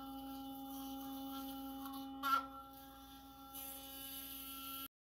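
Philips Sonicare sonic electric toothbrush buzzing steadily with a high hum while brushing teeth, with a brief louder burst about two seconds in. The sound cuts off abruptly just before the end.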